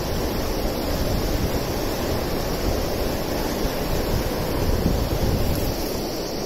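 Fast-flowing river water rushing and churning over rapids, a steady roar of water, with wind buffeting the microphone.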